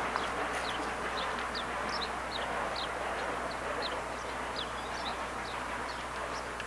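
A small songbird repeating short high chirps, two or three a second, over a steady rushing background noise that slowly fades.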